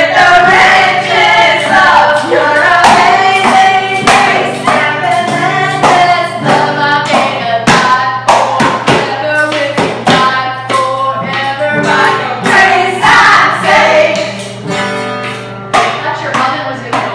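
Women singing to a strummed acoustic guitar, the music growing quieter near the end.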